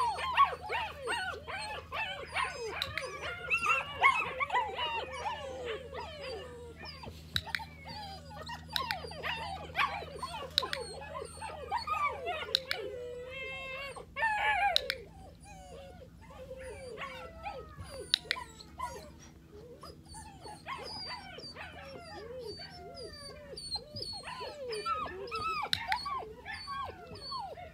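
Young puppies whining and yelping, with many short high cries overlapping. The cries are thickest at the start, thin out in the middle and pick up again near the end.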